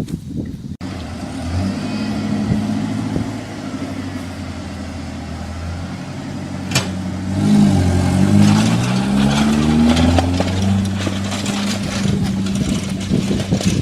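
Vehicle engine running, revving up and back down about halfway through, with a clattering rattle from the towed riding lawn mower that the riders put down to its mower deck.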